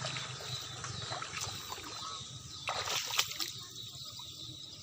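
Muddy water sloshing and splashing, with a few sharper splashes about three seconds in.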